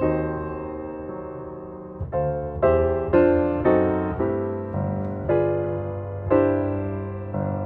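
Background piano music: a held chord, then gentle notes struck about every half second, each ringing and fading.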